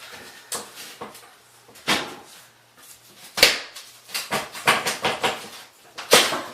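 Knocks and clattering of a particle-board bathroom vanity cabinet being banged and worked loose: single hits about half a second, two seconds and three and a half seconds in, a quick run of knocks after that, and a loud hit near the end.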